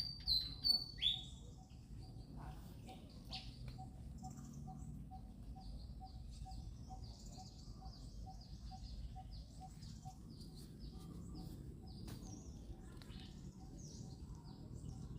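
Small birds chirping: a few loud, high chirps in the first second or so, then a steady run of fainter high chirps.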